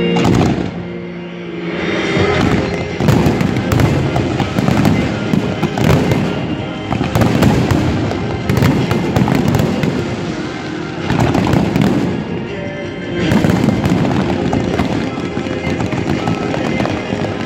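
Fireworks display: many shells bursting in quick succession, the bangs and crackle running almost without a break, with music playing underneath.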